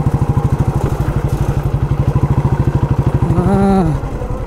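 Motorcycle engine running with a rapid, even exhaust beat.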